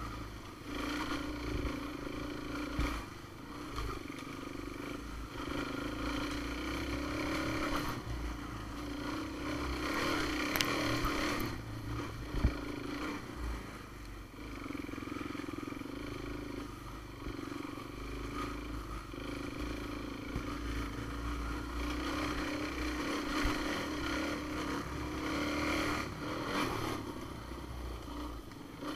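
Off-road vehicle engine running at a cruising pace on a trail, its revs rising and easing a little, with a few brief clatters and scrapes.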